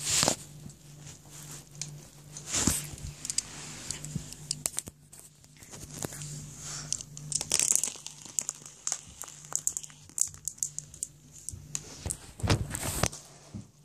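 Close handling noise: rustling and crinkling with many scattered sharp clicks, and louder bursts about 2.5 s in and again near the end, as the recording phone is moved about.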